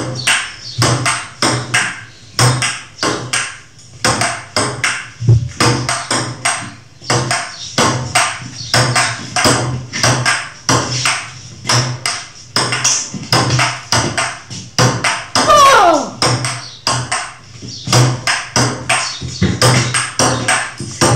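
Upbeat electronic background music with a fast, steady percussive beat. About fifteen seconds in, a whistling tone slides downward.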